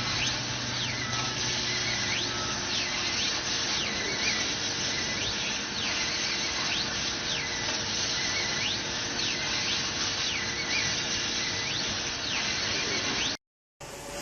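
Metalworking machinery in a tool factory giving off repeated high squeals, about one a second, each sliding up and back down in pitch over a steady machine din. It stops abruptly near the end.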